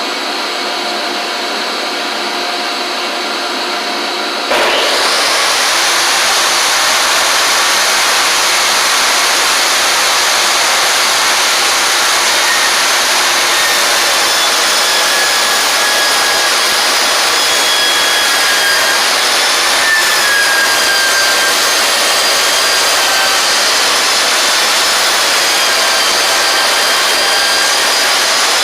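A shop dust collector running steadily, then about four and a half seconds in a Ridgid table saw starts and runs louder over it with a high whine. Its Milwaukee 24-tooth ripping blade rips along the edge of a board, the whine wavering in pitch as it cuts.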